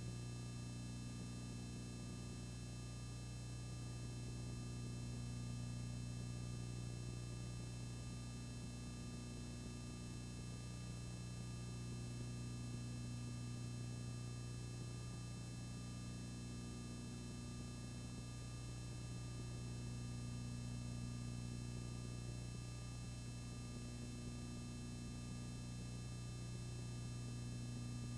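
Steady low electrical hum with faint hiss, and no other sound.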